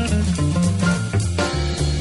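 Background music: a jazzy tune with guitar and drums over a bass line that steps from note to note.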